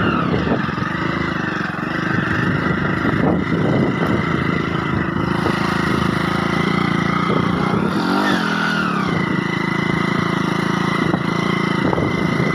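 A motor vehicle's engine running steadily while it drives, with a steady high whine over it. There is a brief rise and fall in pitch about eight seconds in.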